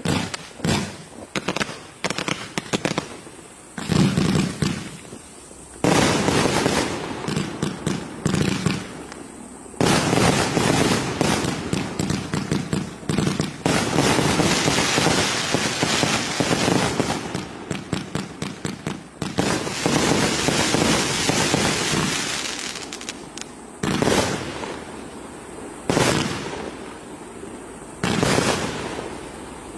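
1000-shot fireworks cake firing a dense barrage of shots and bursts in rapid succession, with fresh loud volleys starting suddenly several times.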